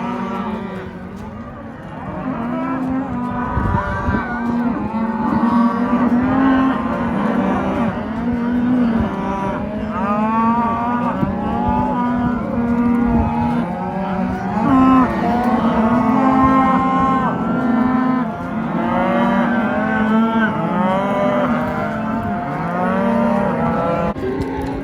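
A herd of cattle mooing and bawling, many animals calling over one another without a break.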